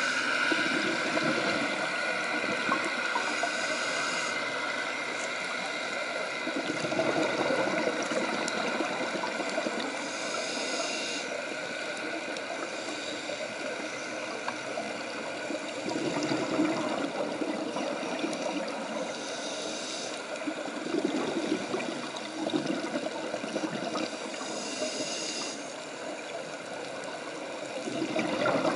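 Underwater sound of scuba divers breathing through regulators: a steady watery hiss, with gurgling bursts of exhaled bubbles coming every several seconds.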